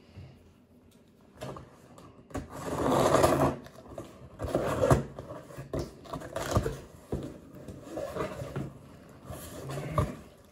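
A scissor blade slitting the packing tape on a cardboard box, in several uneven scraping strokes; the longest and loudest lasts about a second and starts a little over two seconds in. Knocks from the box being handled come between the strokes.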